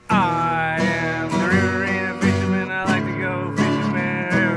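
Intro music: strummed acoustic guitar in a country style, with a bending melody line over the chords.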